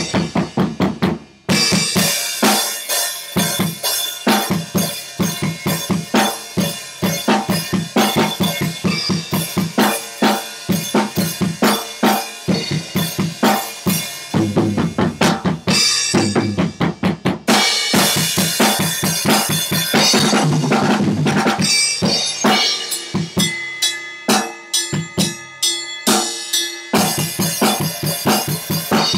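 Acoustic drum kit with a Sonor bass drum, played fast and busy: bass drum, snare and cymbals. There is a short break about a second and a half in, and a sparser passage of separate hits near the end.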